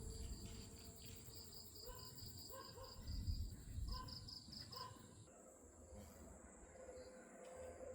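Insects chirping in a fast, even series of high pulses, about five a second, with a few short bird calls and low rumbles now and then.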